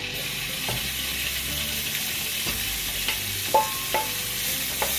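Diced salt pork sizzling and spattering as it hits a smoking-hot pan of fat. A few sharp metallic clinks ring out over the steady sizzle, the loudest about three and a half seconds in.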